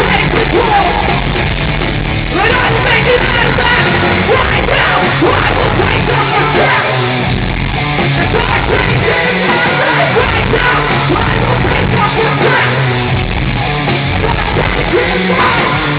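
Loud live heavy band music with yelled vocals over the full band.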